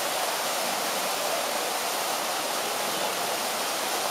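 Running water rushing steadily, an even hiss that does not change.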